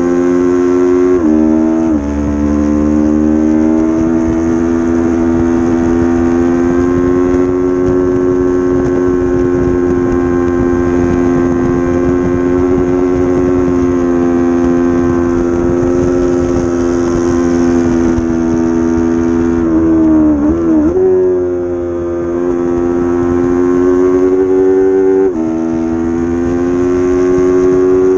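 Racing motorcycle engine in a 300-class road race held at high revs, with wind rumble on the onboard microphone. The pitch drops sharply twice about a second and two seconds in, as in quick upshifts, then holds steady; about twenty seconds in the revs dip and waver before climbing again, and another sharp drop comes near the end.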